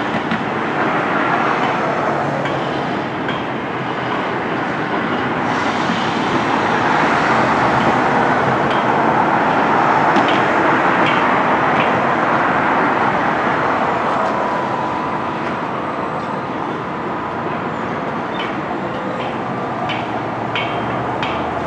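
A train passing by: a rolling noise that swells and fades, then a run of regular clicks near the end.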